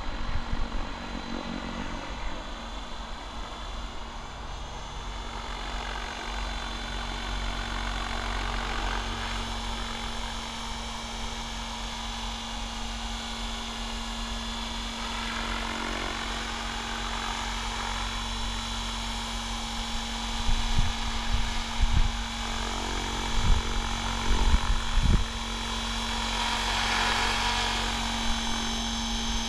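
Mikado Logo 700 radio-controlled helicopter in flight: a steady high whine from its motor and rotor that swells and bends in pitch as it makes passes. A few low thumps come about two-thirds of the way through.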